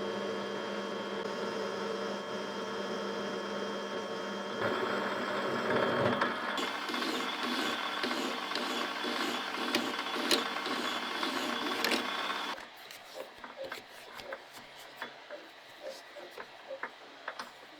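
A small electric motor runs steadily with a pitched whine and becomes rougher and louder with clicks about five seconds in. It cuts off suddenly about twelve seconds in, and light clicks and taps follow.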